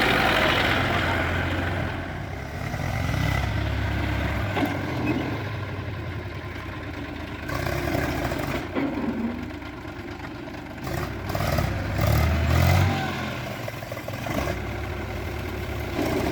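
Diesel engines of a JCB backhoe loader and farm tractors working, the engine note swelling and easing off as the machines are loaded, with a burst of clatter about three-quarters of the way through.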